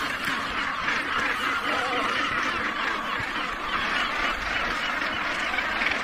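Dense, continuous chorus of harsh calls from a large northern gannet colony, many birds calling over one another.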